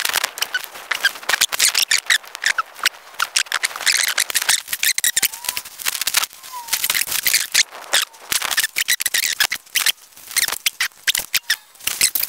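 Self-adhesive expanding foam sealing strip being unrolled, peeled from its backing and pressed onto an aluminium panel: dense crackling and rapid sticky clicks, with a couple of brief squeaks near the middle.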